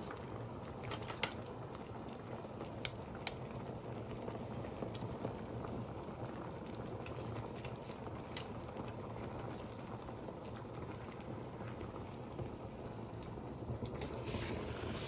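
Hot pot broth boiling steadily in the pot, an even bubbling, with a few sharp clicks about a second in, near three seconds and near the end.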